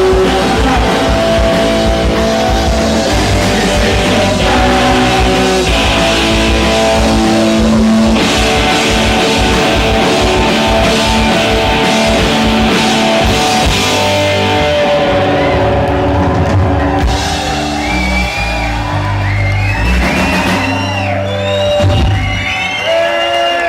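Punk rock band playing live: electric guitars, bass, drums and singing. Toward the end the playing thins out and whoops rise over it.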